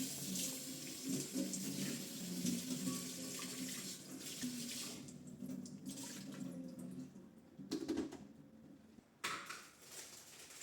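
Tap water running into a sink with an even hiss, shut off about halfway through, followed by two sharp knocks.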